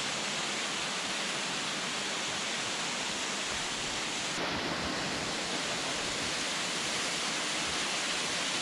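Waterfall and cascading mountain stream, water rushing steadily over rocks.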